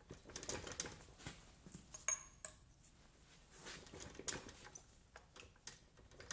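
Metal parts clinking and knocking as the rear wheel hub of a Suzuki LT50 quad is worked off its splined axle. There are irregular small clicks throughout, with a sharp ringing metallic clink about two seconds in. The hub is reluctant to come off.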